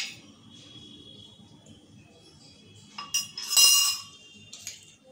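A steel spoon clinks against a small steel bowl as chopped onion is scraped out. About three seconds in come a few sharp clicks and then a louder metallic clink that rings briefly, as the small steel bowl is set down.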